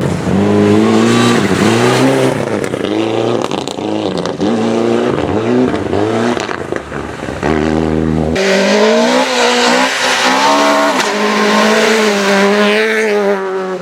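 Rally car engines revving hard, pitch climbing and dropping with gear changes and throttle lifts. The sound changes abruptly about eight seconds in, with another stretch of hard revving.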